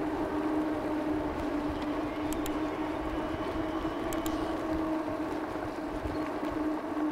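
E-bike underway: a steady hum over rushing tyre and wind noise, with a few faint ticks.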